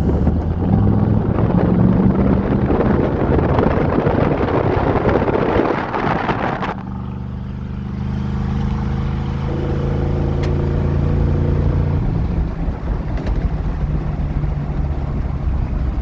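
1971 Chevy C10's 350 small-block V8 running hard with a loud, rough rush of noise, then about seven seconds in it drops abruptly to a quieter, steady engine drone that swells slightly again.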